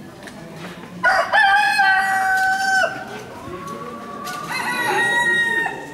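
Rooster crowing twice: a loud, long crow about a second in, lasting about two seconds, then a second crow near the end.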